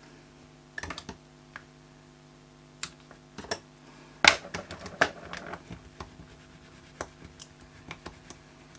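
Scattered clicks, taps and light rustles of hands handling paper strips, a tape roll and craft tools on a craft mat, busiest about four to five seconds in.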